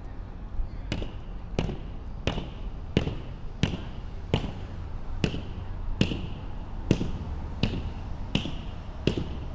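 Footsteps at a steady walking pace, about a step and a half a second, each a sharp tap, starting about a second in over a low steady rumble.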